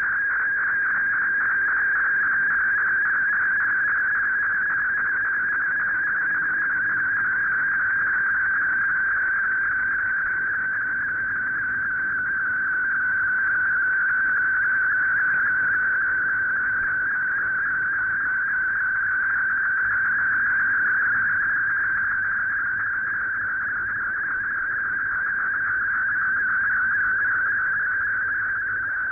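MFSK32 digital-mode data signal received off a shortwave broadcast: a steady, fast-warbling cluster of tones, heard as the tones that carry a picture being sent, over faint band hiss.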